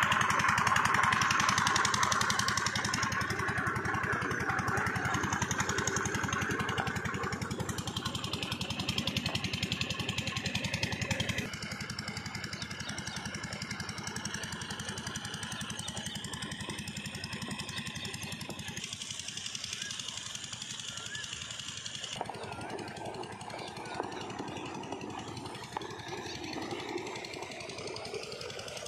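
Single-cylinder diesel engine of an irrigation water pump set running steadily, with a rapid, even thumping beat. It drops suddenly to a lower level about eleven seconds in and runs on quieter.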